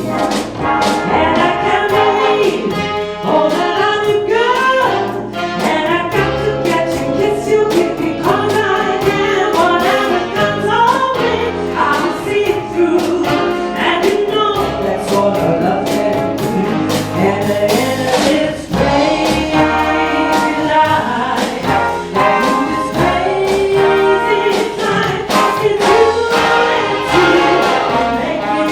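Big band playing live: brass section over a rhythm section with drums and bass, with a melody line moving above it.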